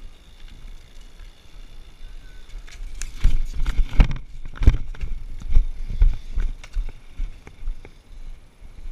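BMX bike rolling downhill on rough asphalt: a low steady rumble at first, then from about three seconds in a run of loud, irregular knocks and rattles.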